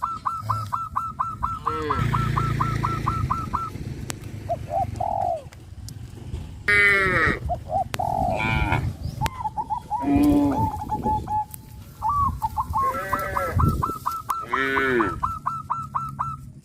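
Farmyard animals calling: a fast run of short repeated high calls from poultry, cattle mooing, and more loud poultry calls, with the rapid high calls returning near the end.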